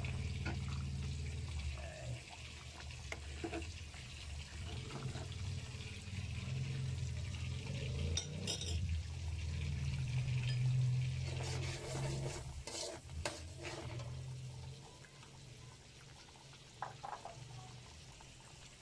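Chicken caldereta simmering in an aluminium pot over a gas burner, with a steady low rumble and light bubbling hiss. A metal ladle stirs the stew, and it scrapes and knocks against the pot a few times, about halfway through and again a little later.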